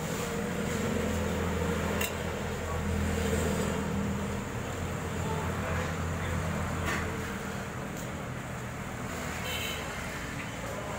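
Steady low hum of a busy street stall, with a few light clicks and clatters.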